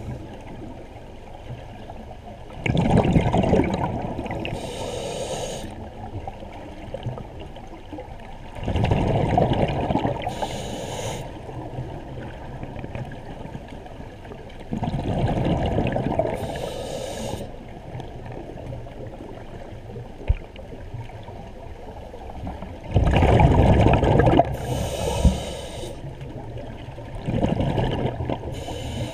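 Scuba diver breathing through a regulator underwater. Five rumbling bursts of exhaled bubbles come roughly every six seconds, most followed by a short hiss of the regulator on the next breath in.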